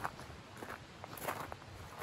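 Footsteps of a person walking at a steady pace, about three steps in two seconds.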